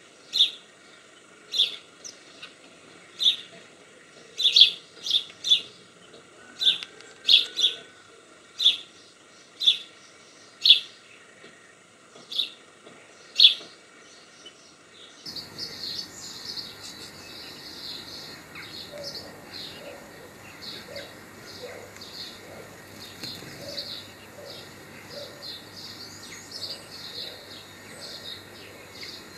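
Small songbird giving short, sharp chirps, about one a second and sometimes in pairs. About halfway through, the sound cuts to quieter, continuous twittering over steady background noise.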